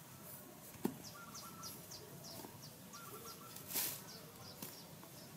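A bird calling in a quick run of short, high, downward-sliding chirps, about three or four a second. A sharp knock comes about a second in, and near four seconds in there is a short rush as a basketful of loose soil is thrown out.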